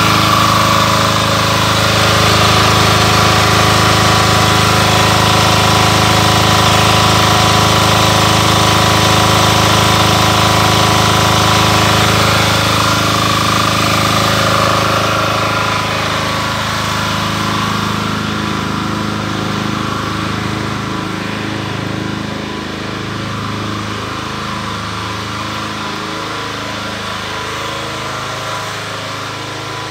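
Air-cooled diesel generator set running at a steady speed, a constant engine drone that grows somewhat quieter about halfway through.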